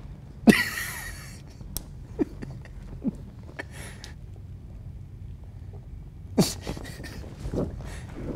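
A person's stifled laughter in short, uneven bursts, the loudest about half a second in.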